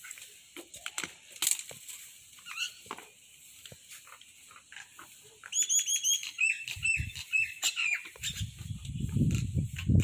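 A bird calls with a quick series of short, falling, high-pitched chirps about halfway through. A louder, irregular low rumble starts near the end, over faint scattered clicks.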